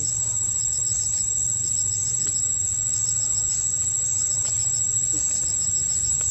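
Insects chirping in short groups of three or four quick pulses, about one group a second, over a steady high-pitched insect trill and a low background rumble.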